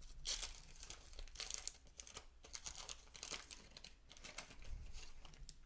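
Faint crinkling and tearing of a waxed-paper baseball card wax pack wrapper being opened, in a run of short irregular crackles.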